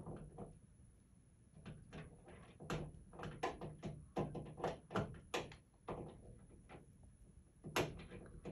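Cockatoo flipping a wall light switch on and off with its beak: a string of sharp plastic clicks at an uneven pace of about one or two a second, the loudest one near the end.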